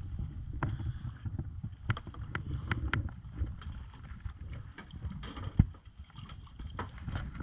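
Low rumble of wind on the microphone aboard a small wooden fishing boat as a hooked fish is brought up alongside the hull, with a quick run of sharp clicks about two seconds in and a single loud knock a little over five seconds in.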